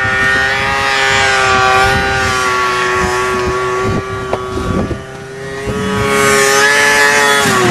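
Snowmobile engine running at high, steady revs, a sustained whine with many overtones. It eases briefly about five seconds in, comes back up, and its pitch starts to drop at the very end.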